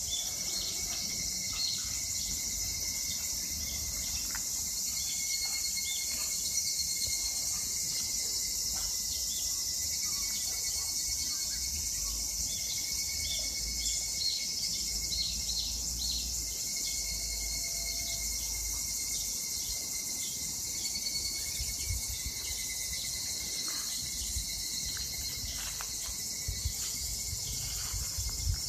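A chorus of higurashi, the Japanese evening cicada (Tanna japonensis), singing continuously, with many short notes repeated in rapid series over a steady high-pitched buzz.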